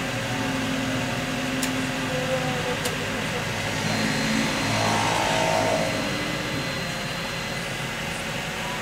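Honda CRX del Sol's electric TransTop roof mechanism running as the raised decklid lowers: a steady motor drone that shifts in pitch and swells around the middle, with two sharp clicks in the first three seconds.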